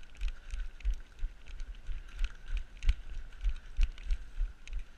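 Running footsteps on woodland ground heard through a body-worn camera: a steady run of low thuds, about two to three a second, with light clicks over them.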